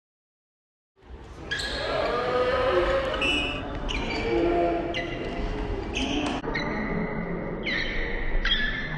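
Silent for about a second, then the sound of a basketball game in an echoing gym: a basketball bouncing on a hardwood court, with players' voices in the background. The sound changes abruptly several times.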